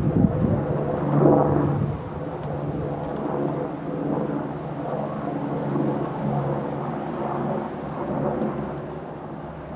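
Wind buffeting the microphone in an uneven low rumble.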